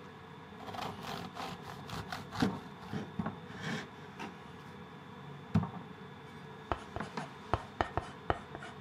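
Serrated stainless bread knife sawing back and forth through the crust of a savoury loaf cake on a wooden cutting board, a run of scraping strokes. Then comes one sharp knock about five and a half seconds in, and a quick series of light taps near the end.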